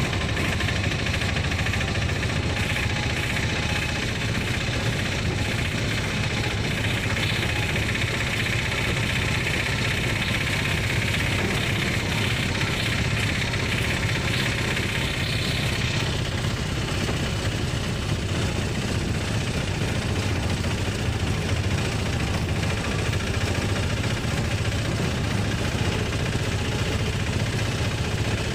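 Engine of a passenger auto running steadily while driving, heard from inside the open cab. A higher hiss in the sound eases off about halfway through.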